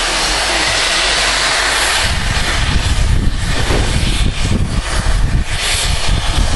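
Steam locomotive pulling away with its train. For about two seconds there is a loud steady hiss of steam from the open cylinder drain cocks; then heavy exhaust beats come in over a low rumble, roughly two to three a second.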